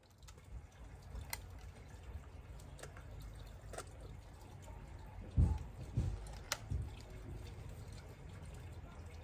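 Handling noise from an air rifle: scattered light clicks and a few dull low thumps a little past the middle. No shot is fired.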